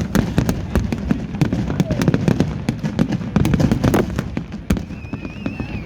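Fireworks going off in quick succession, many sharp bangs and crackles, over the chatter of a large crowd. Near the end a short wavering whistle sounds.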